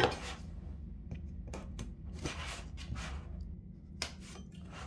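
Cardboard phone box being handled on a table, with a series of soft scrapes and rustles as it is turned and slid. About four seconds in a knife blade cuts through the box's seal along its edge. A low steady hum runs underneath.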